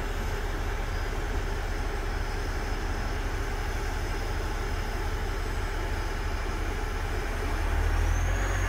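Truck-mounted boom crane's engine running steadily under hydraulic work, with a thin high whine over the low engine hum. Near the end the whine steps up in pitch and the engine gets a little louder as the boom is raised.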